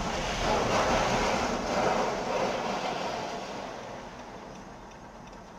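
Rumbling road and engine noise of a car, heard from inside the cabin, growing fainter over the last few seconds.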